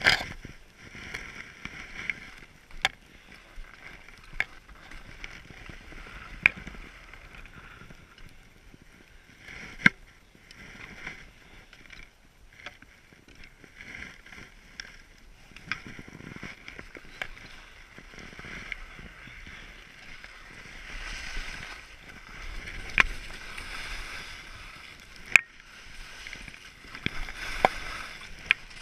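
Wind and the rustle of a skier's gloves and jacket against a body-worn action camera, with scattered sharp clicks and knocks from handling the ski poles and gear. The hiss grows louder in the last third.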